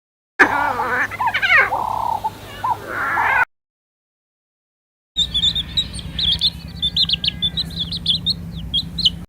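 Animal calls in two separate bursts. The first is a pitched, gliding call of about three seconds. After a gap of silence comes a run of many quick high chirps over a steady low hum.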